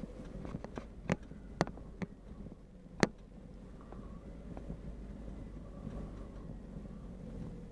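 Vehicle driving slowly over a rough dirt trail: a steady low engine and tyre rumble with several sharp knocks and rattles in the first few seconds, the loudest about three seconds in.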